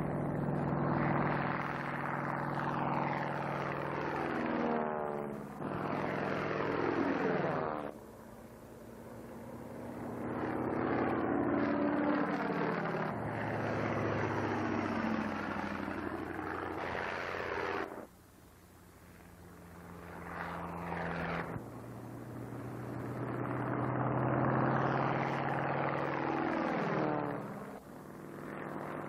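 Biplane engine and propeller droning on low aerobatic passes, the pitch dropping as the plane goes by, several times over. The sound cuts off abruptly twice and swells back up as the next pass begins.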